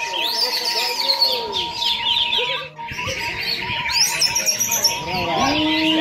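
Chorus of many caged songbirds singing at once in competition: a dense, overlapping tangle of fast chirps, trills and whistled notes.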